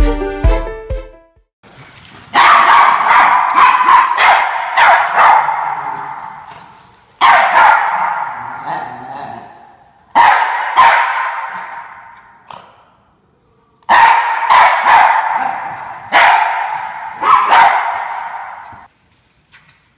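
Norfolk terriers barking in loud volleys of rapid, sharp barks, five bouts with short pauses between them.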